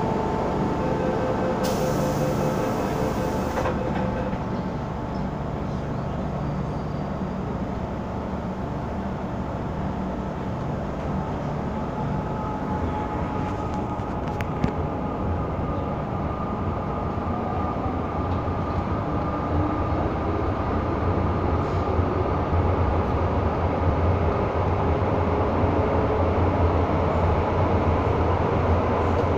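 Interior noise of an MTR M-Train car running on the Island Line: a steady rumble of wheels and running gear heard inside the crowded car. A low hum grows stronger and the noise gets louder from about halfway through.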